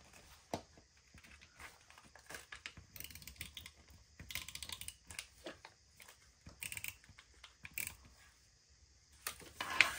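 Tombow correction tape rolled across a paper journal page in short strokes, whiting out a printed line: quiet runs of small clicks and scratches, with a sharper click near the end.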